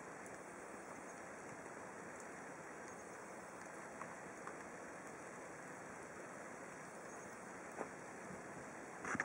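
Steady rain falling, an even hiss with a few faint single drip taps, and a brief louder knock near the end.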